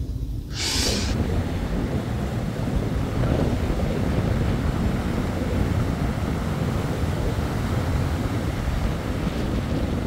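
Strong storm wind buffeting the microphone, a steady low rumble over the wash of rough surf breaking on a sandy beach. A short hiss comes just under a second in, before the wind and surf settle in.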